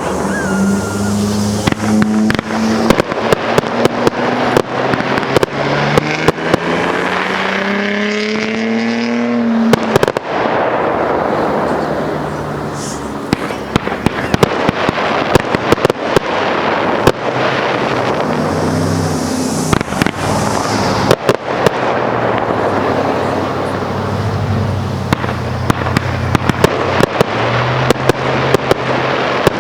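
Aerial fireworks shells and cakes firing and bursting in rapid, irregular bangs over a continuous crackling hiss. Underneath runs a low pitched drone that rises in pitch about six to ten seconds in.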